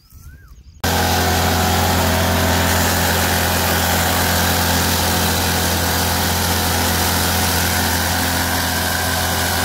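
Small air-cooled petrol engine driving a miniature threshing machine, running at a steady speed with an even, unchanging tone. It cuts in abruptly about a second in.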